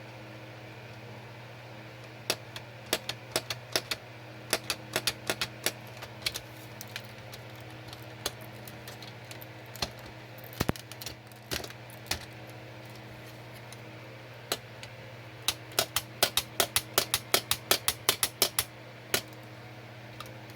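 Lego Technic animatronic dog mechanism clicking: sharp plastic clicks in quick irregular runs of several a second, over a steady low hum.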